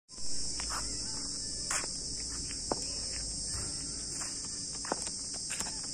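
Steady high-pitched buzzing of insects, an unbroken shrill drone, with a few faint short ticks over it.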